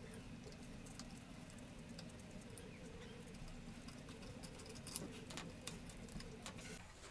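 Faint scratching and light clicks of a gloved hand working at a bicycle's rear hub and chain, with a few sharper metallic clicks about five seconds in. Under it a steady low hum that cuts off near the end.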